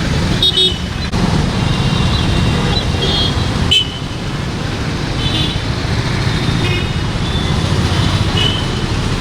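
Road traffic passing with a steady low rumble, and short vehicle horn toots sounding about half a dozen times.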